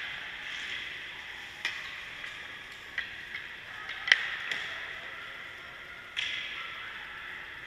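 Ice hockey skates scraping on rink ice, with a few sharp clacks of hockey gear; the loudest clack comes about four seconds in, and a fresh, sudden skate scrape starts just after six seconds.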